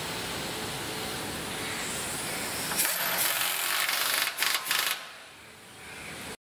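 Pneumatic nut runner tightening the fuel-tank mounting bolt on a motorcycle. It runs for about two seconds starting about three seconds in, then gives a few short bursts as the bolt seats, over steady assembly-line noise. The sound cuts off suddenly near the end.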